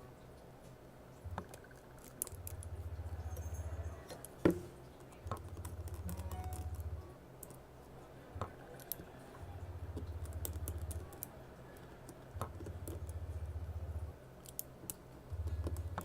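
Small clicks and taps of hand tools on iPhone 6 parts while components are moved from the old screen to the new one, with one sharper click about four and a half seconds in. Under them a low hum switches on and off every couple of seconds.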